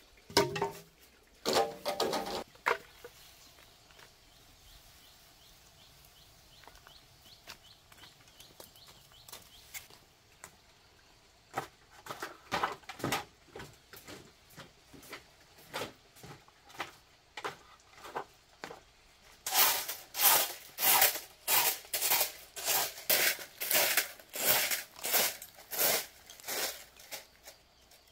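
A few scattered knocks, then a run of sharp, noisy strokes that becomes a steady rhythm of about two a second and is loudest in the last third.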